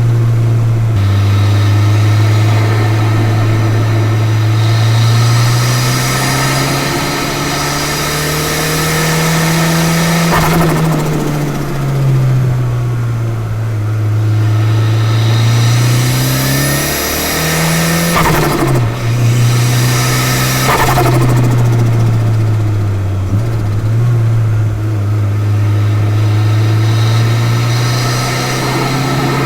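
Mitsubishi Lancer Evolution VI's turbocharged 4G63 four-cylinder engine under way, its note rising and falling several times as the car pulls and shifts. Short sharp bursts come at the lift-offs, where the Blitz Super Sound blow-off valve releases boost.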